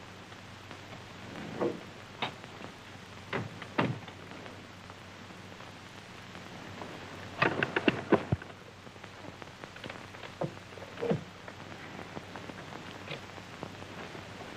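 Steady hiss of an old film soundtrack, broken by scattered short knocks and clicks. There is a quick cluster of several clicks about eight seconds in.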